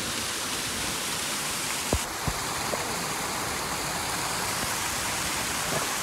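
Small waterfall splashing down over rocks: a steady rush of falling water.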